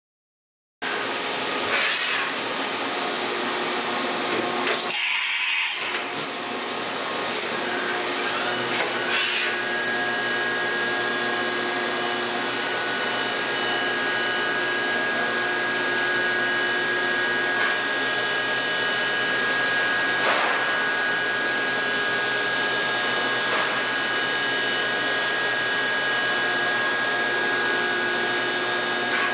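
A 2001 Kiwa KNH400 horizontal machining center running under power: a steady machine hum and hiss with several steady tones. A brief loud hiss comes about five seconds in, and a steady high whine joins from about nine and a half seconds on.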